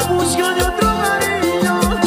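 Live band music with a steady dance beat: a melody line over bass and drums.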